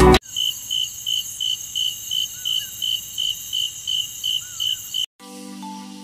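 Crickets chirping in an even rhythm, about three chirps a second, over a fainter steady high trill. The chirping stops abruptly about five seconds in.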